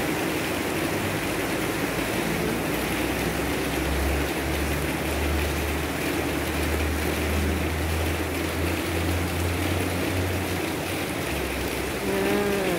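Heavy rain falling steadily, with a low engine hum from a vehicle that comes in about a second in, swells through the middle and fades near the end.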